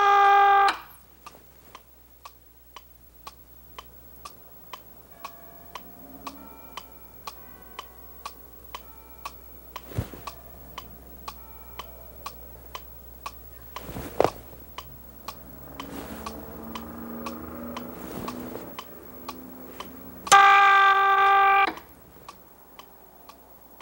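Steady mechanical ticking, about two ticks a second, with two louder knocks along the way. A loud held buzzing tone with many overtones cuts in for about a second near the end.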